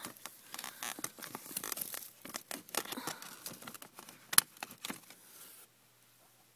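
Paper crinkling and ripping as a cat claws and tugs at it: a quick run of sharp crackles and tears, with one loud snap about four seconds in, stopping suddenly near the end.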